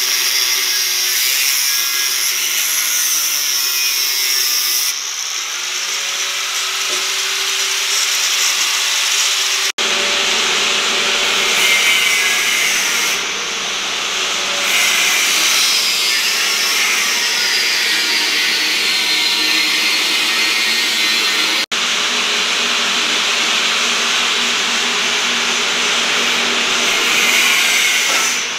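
Angle grinder cutting through a metal pipe: a loud, continuous high whine over a grinding rasp. The whine sinks in pitch as the disc loads into the cut, and the sound breaks off briefly twice.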